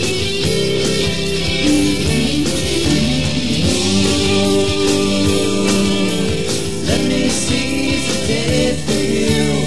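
Rock band recording: a song with guitar backing and a lead vocal singing over it.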